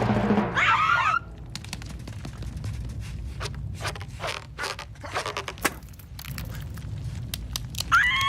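Cartoon slapstick sound effects: a short squawk about a second in, then a run of irregular clicks, taps and scrapes, and another squawk near the end.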